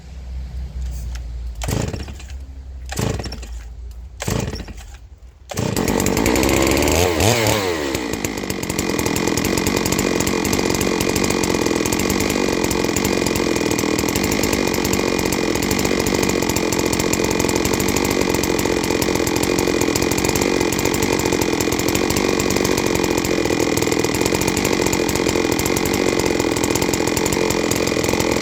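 A 660 two-stroke chainsaw on a chainsaw mill is pull-started on choke after a long rest. It takes several pulls, catches about five seconds in and revs, then runs steadily at full throttle as it cuts through the oak log.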